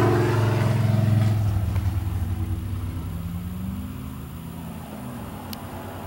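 A motor vehicle's engine running with a steady hum, loudest at first and fading away over the next few seconds.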